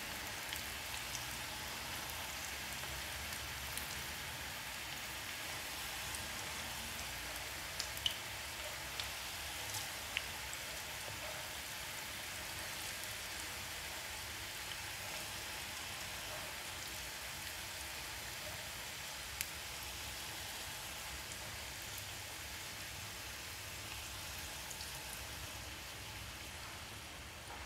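Onion bhajis deep-frying in hot oil over a low flame: a steady sizzling hiss with a few sharp pops.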